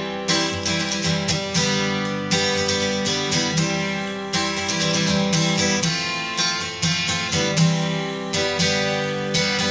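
Background music carried by a strummed acoustic guitar, with quick, regular strums.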